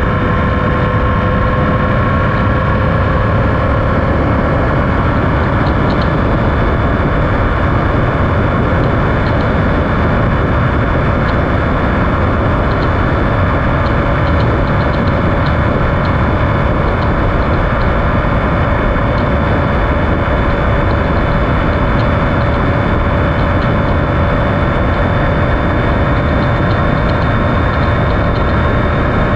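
Triumph Speed Triple 1050's inline three-cylinder engine running at a steady cruise, under loud, even wind noise. The engine note eases down slightly in the first few seconds, then holds steady.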